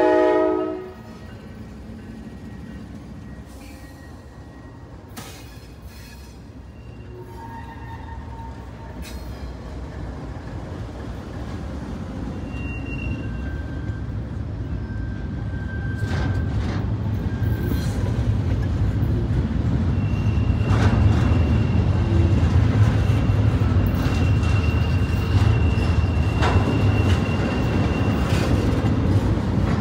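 Double-stack intermodal freight train passing: the locomotive horn cuts off about a second in, then the low rumble and clatter of the well cars grows steadily louder, with scattered clicks and a few faint high wheel squeals.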